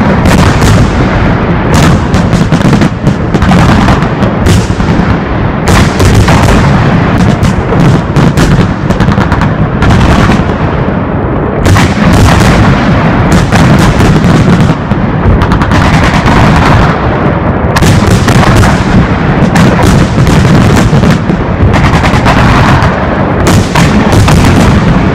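Holiday fireworks salute at close range: a dense, continuous barrage of launch thumps and bursting bangs, very loud and near the limit of the recording throughout.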